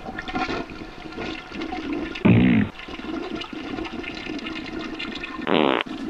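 Toilet flushing: a steady rush of water, with two short, louder sounds about two and a half and five and a half seconds in.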